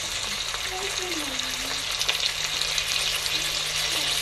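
Pieces of ox cheek beef sizzling in hot oil in a non-stick frying pan: a steady high sizzle, dotted with quick pops and crackles.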